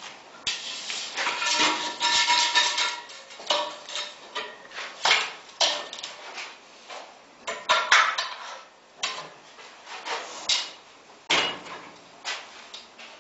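Irregular metallic clanks, knocks and rattles from a gear-driven wall plastering machine's steel mast and frame, with some brief ringing in the first two seconds.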